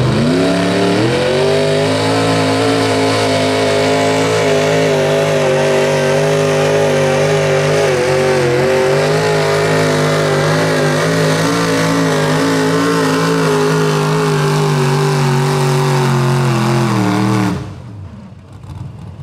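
Super stock pulling pickup's engine, a classic Chevrolet C10, revs up as the truck launches against the sled. It then holds at high revs under full load, steady with a slight waver. Near the end it falls off and cuts out as the pull ends.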